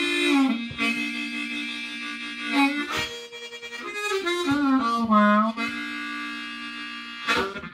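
Blues harmonica played in cupped hands as a train imitation: long held chords bent down in pitch and back up, then near the end a rhythmic chugging begins.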